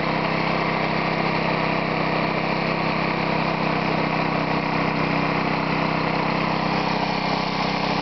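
Briggs & Stratton 3.5 hp single-cylinder lawnmower engine running steadily on its governor, belt-driving a homemade piston air compressor. The engine is labouring under the compressor's load as the tank pressure nears 100 psi.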